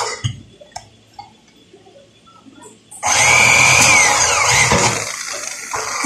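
A few light clicks and taps of handling an aluminium profile, then, about halfway in, a corded electric drill starts and drills into the aluminium curtainwall profile. Its high motor whine drops in pitch as the bit bites, then picks back up near the end.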